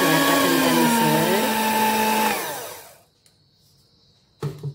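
Philips electric hand mixer running, its beaters churning a thick margarine-and-egg cookie batter in a stainless steel bowl; the motor whine drops in pitch about a second in and the mixer switches off and winds down at about two and a half seconds. Two sharp knocks near the end.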